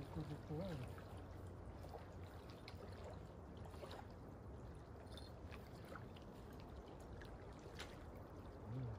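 Quiet lakeshore ambience: a low steady wind rumble with gentle water sounds and a few faint scattered clicks. A brief faint voice is heard in the first second and again just before the end.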